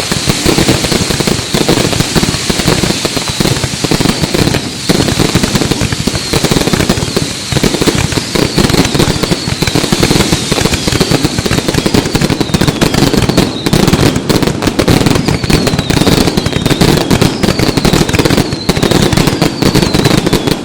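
Fireworks display: a dense, continuous crackle of bursting fireworks. In the second half, short, high, falling whistles recur over and over.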